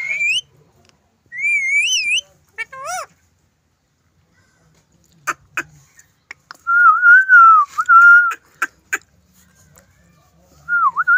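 Parrot whistling: short rising-and-falling whistled notes, then a few sharp clicks, then longer wavering whistles in the second half.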